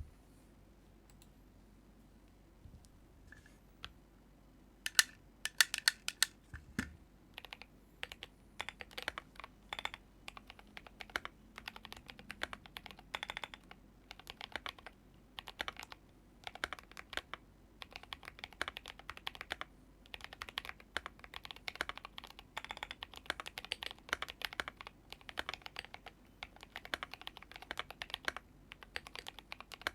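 Typing on a GMMK Pro mechanical keyboard with Holy Tom switches, lubed C3 Equalz stabilizers and SA-profile ABS doubleshot keycaps. Only a few faint clicks at first, then a quick run of loud keystrokes about five seconds in, followed by steady, irregular typing.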